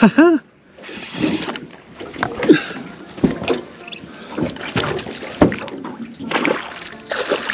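Irregular splashes, sloshes and knocks as a hooked pike is fought at the surface beside a boat and the landing net is handled against the hull.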